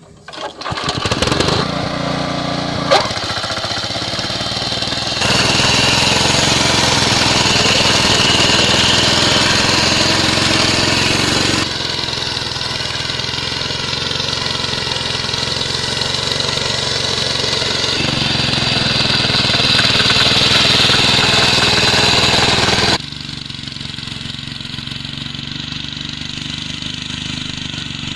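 Motor cultivator engine running steadily while it works the soil. It comes in about a second in, with one sharp click a couple of seconds later. Its loudness steps abruptly up or down three times.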